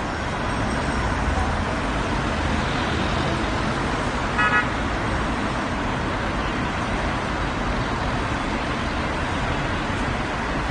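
Road traffic noise: a steady rumble of passing cars, with one short car horn toot about four seconds in.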